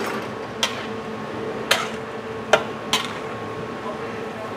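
Metal spatula knocking against a wok four times while stir-frying vegetables, over a steady hiss.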